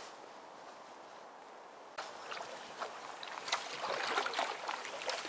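Faint outdoor background, then from about two seconds in a kayak paddle dipping and splashing in the water, with repeated irregular splashes as the kayak passes close by.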